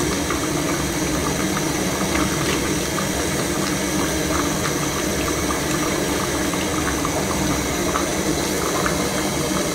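A pot of bitterleaf soup boiling on a gas burner: a steady rush of bubbling and flame hiss with faint little pops throughout.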